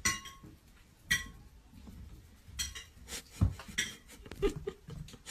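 Two sharp clinks with a short ringing tone, about a second apart, then a run of softer clicks and taps with a dull thump in the middle.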